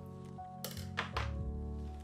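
Background music with held notes, and three short clinks of kitchen utensils close together, about a second in.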